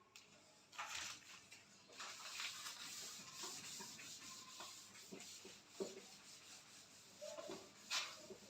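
Faint scratching of handwriting, a writing tip rubbing across a surface in uneven short strokes.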